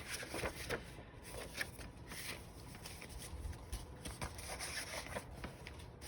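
Faint rustling and brushing of paper and card stock in short, scattered touches as the notebook's pages, pockets and journaling cards are handled.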